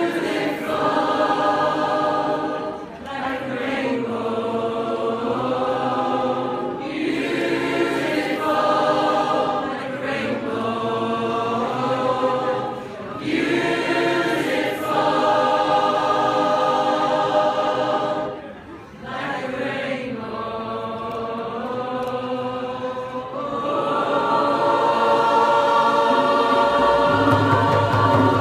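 A choir singing together in harmony, in phrases with short breaths between them. Near the end it settles on a long held chord.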